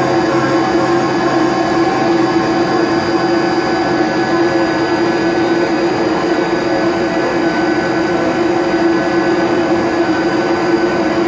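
XYZ 560HD CNC milling machine roughing aluminium at full feed with a DLC-coated end mill: spindle and cutter give a steady tone over a hiss of cutting and flying chips.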